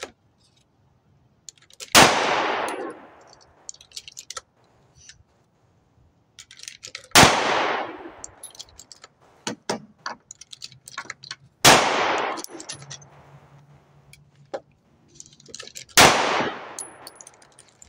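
Four single shots from a Grand Power Q1s 9mm pistol, spaced about four to five seconds apart, each followed by an echo that dies away over about a second. Small clicks and clinks come between the shots.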